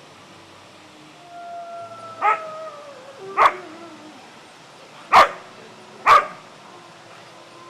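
A canine howling, a long call that slowly falls in pitch, with four short, sharp barks over it and after it, the last two about a second apart.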